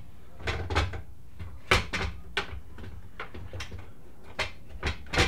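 Scattered metal clunks and knocks as a motorcycle frame and engine are lifted and shifted by hand, about eight in all, with the sharpest about two seconds in.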